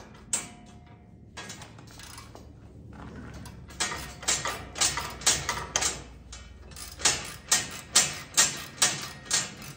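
Ratchet wrench clicking as a nut is tightened onto a bolt, in a regular run of short strokes about two to three a second that starts about four seconds in.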